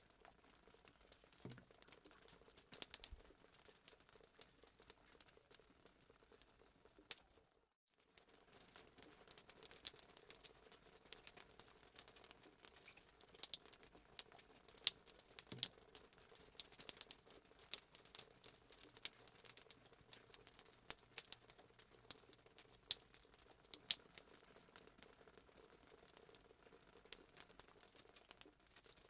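Fireplace sound effect: faint, dense, irregular crackling and popping of burning wood, with a brief gap just under eight seconds in.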